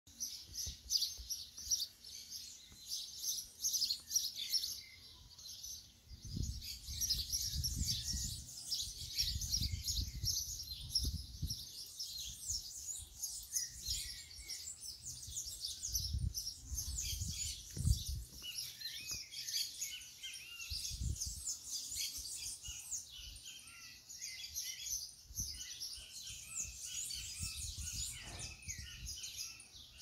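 Many birds chirping and calling at once, a dense chorus of short high chirps that never lets up. Bursts of low rumble on the microphone come and go, around a quarter of the way in, a little past halfway and again shortly after.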